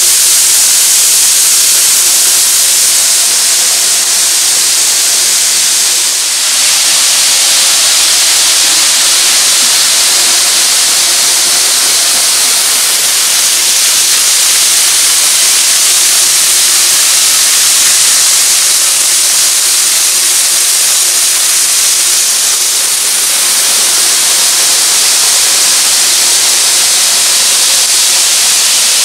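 N-gauge model trains running on a layout: a steady, loud, high rushing hiss of metal wheels on track, with a faint motor hum underneath.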